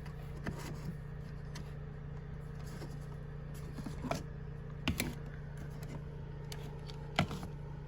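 Honda generator running steadily under charging load, a constant engine hum. A few light clicks and knocks of small objects being handled come over it.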